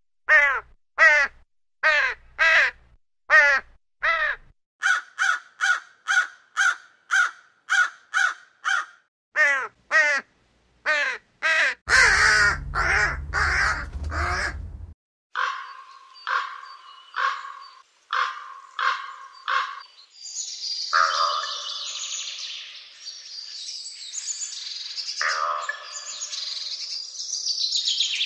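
Crows cawing: a long series of short, harsh caws about one and a half to two a second, in several spliced recordings. A rumbling noise sits under the calls for a few seconds just before the middle, and from about two-thirds of the way in the calls crowd together and overlap.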